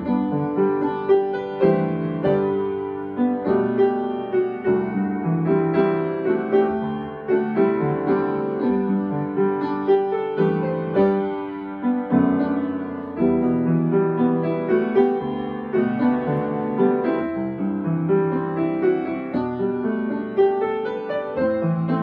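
Background piano music: single notes and chords struck every half second or so, each ringing and fading.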